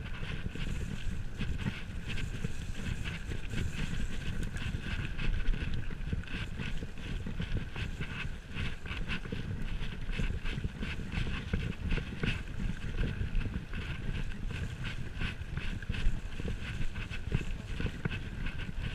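Mountain bike riding fast down a dirt forest trail: the tyres rumble over the ground, with a constant clatter of clicks and knocks from the bike as it bounces over the surface.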